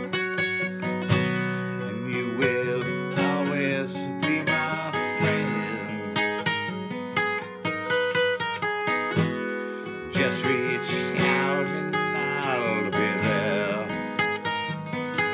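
Acoustic guitar playing an instrumental passage of a song, chords sounding in a steady rhythm.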